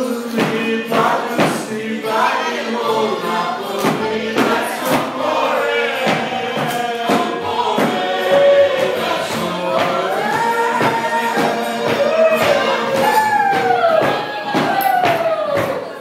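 Dance music playing loudly: a song with singing voices over a steady percussive beat.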